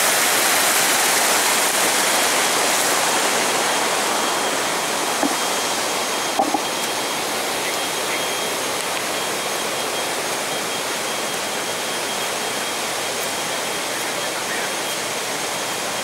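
Water of a waterfall rushing over a rock ledge: a steady hiss that slowly grows quieter.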